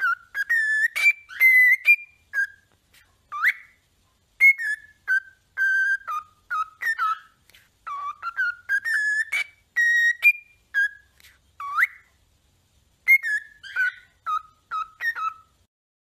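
Cockatiel whistling a tune: a run of short, clear whistled notes, many with quick upward or downward slides, with a short break about three-quarters of the way through.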